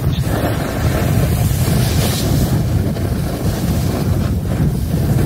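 Wind buffeting a handheld phone's microphone: a steady, loud low rumble with a lighter hiss above it.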